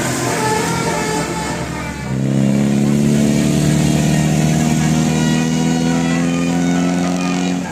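Bus telolet horn: a long, steady multi-tone horn chord that starts about two seconds in, holds for over five seconds and cuts off suddenly near the end.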